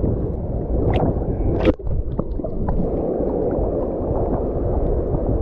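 Choppy sea water sloshing right against the microphone as the camera rides just above the waves. There are two sharp splashes, about a second in and just under two seconds in.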